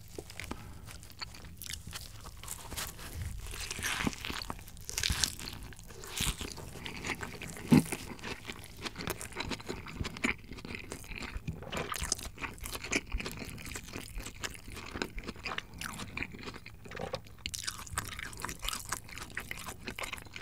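Close-miked mukbang eating sounds: a Lotteria Hanwoo burger with shredded lettuce being bitten and chewed, with irregular wet crunching and crackling throughout and one sharper click about eight seconds in.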